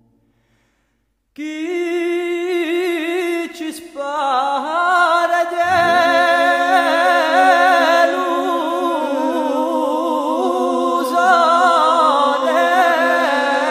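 Unaccompanied voices singing. After a second or so of near silence, a first voice begins, and more voices join about four and five and a half seconds in, singing together in parts.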